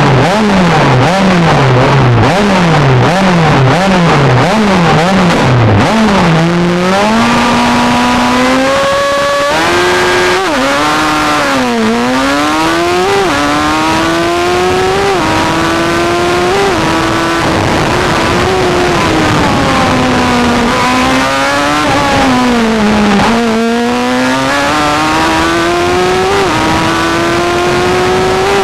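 Formula Gloria single-seater's engine heard onboard, revved up and down about twice a second on the starting grid, then launching about six seconds in and pulling up through the gears, each upshift a sudden drop in pitch. Further on the revs fall away as the car slows for corners, then climb again through the gears.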